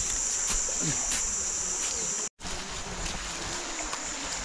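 Steady high-pitched chorus of insects over the low rush of a river. The sound cuts out for an instant a little past halfway, then returns with the insects fainter.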